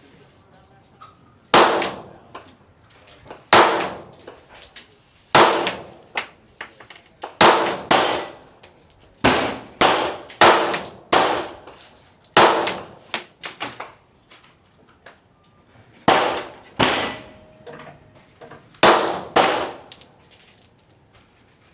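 Glock 19 9mm pistol fired in slow single shots, about a dozen sharp reports spaced one to two seconds apart, a few in quick pairs, each with a short ringing echo.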